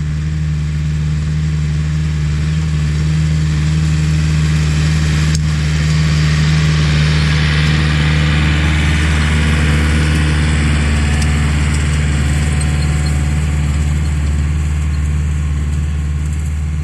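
Diesel engine of a John Deere utility tractor running steadily under load as it pulls a disc harrow across tilled ground. It grows louder as the tractor nears, toward the middle, then eases off slightly near the end as it moves away.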